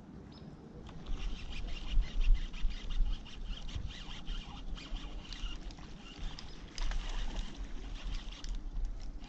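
Baitcasting reel being cranked, a whir with many small clicks, over a deep rumble of wind and handling on the microphone that starts about a second in.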